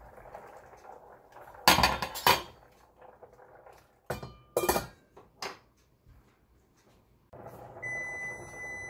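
A stainless steel pot of boiling pasta knocked twice with a wooden spoon, then its metal lid clanking and ringing as it is set on the pot. Near the end a kitchen timer starts a steady high beep, signalling that the pasta's boiling time is up.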